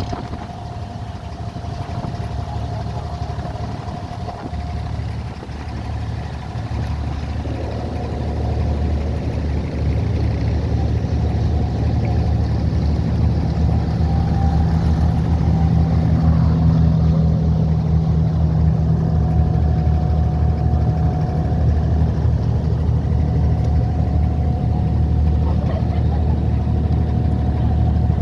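Boat engine running steadily with a low hum and a thin steady tone above it, growing louder about eight to ten seconds in.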